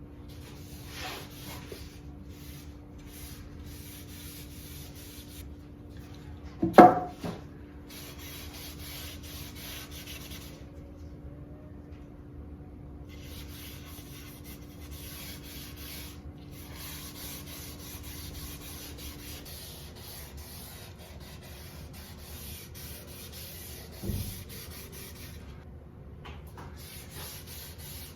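Sandpaper rubbing back and forth on a wooden picture ledge during hand sanding, in long stretches with short pauses between. A sharp knock comes about seven seconds in and a softer one near the end.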